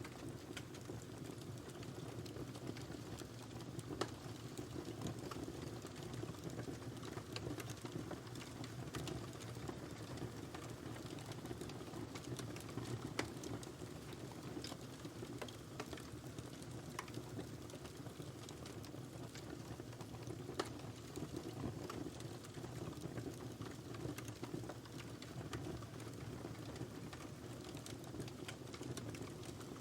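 Wood fire burning in a fireplace: a steady low rushing of the flames with irregular sharp crackles and pops, a few of them louder, about 4, 13 and 20 seconds in.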